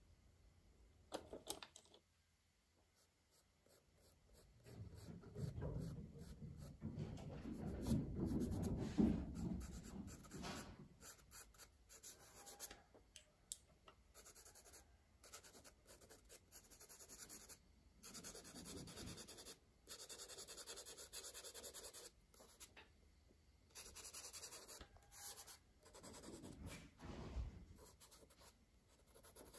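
Colour crayon scratching and rubbing on paper in short, repeated strokes, with a stretch of louder, lower rubbing about five to eleven seconds in.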